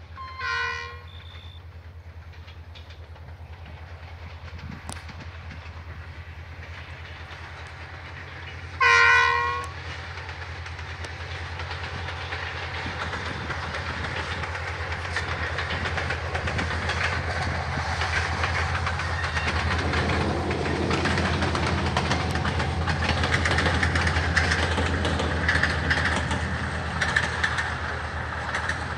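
Passenger train locomotive sounding its horn twice, a short blast just after the start and a longer, louder one about nine seconds in. Then the train draws near and passes under a steady low engine hum, with growing wheel-and-rail noise and rapid clicks, loudest in the second half.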